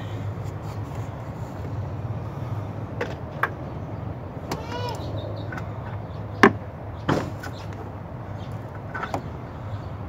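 Scattered sharp plastic clicks and taps from hands working a red Scotch-lock wire tap and a resistor lead, the loudest about six and a half seconds in, over a steady low hum.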